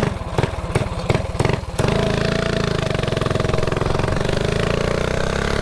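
A mini bike's small engine idling with an uneven, lumpy beat of about three pulses a second. About two seconds in it picks up and runs steadily under throttle, its pitch slowly climbing. The rider says he needs a good carburetor.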